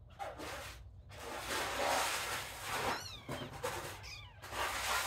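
Kittens meowing: two short, high meows about 3 and 4 seconds in, among surges of rustling noise.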